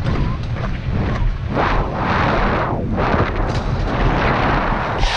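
Hockey skate blades scraping the ice as the skater strides, with two long rushes near the middle. Underneath is a steady low rumble of wind on a body-worn camera microphone.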